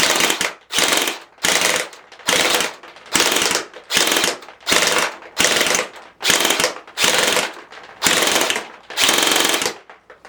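Crosman Pulsar 72 airsoft electric gun firing a string of short full-auto bursts on an 11.1 V LiPo battery, about fourteen in all, each under half a second. Its plastic-geared gearbox is cycling hard and sounds a little squirrely, a sign of strain under the higher voltage.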